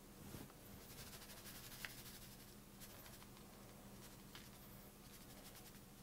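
Faint patter of a coarse dry spice rub being shaken from a plastic tub onto a rack of raw pork ribs on a metal tray, with a few small ticks, over a low steady room hum.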